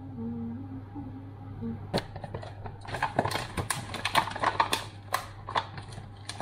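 Clear plastic cheese wrapper crinkling and crackling as it is handled and peeled open, a dense run of sharp crackles that starts about two seconds in.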